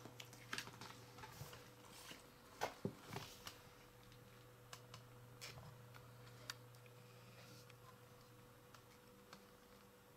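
Near silence: scattered faint clicks and taps as the card-backed foam sticker picture is lifted and handled, with a few louder clicks about three seconds in. A steady low hum runs underneath.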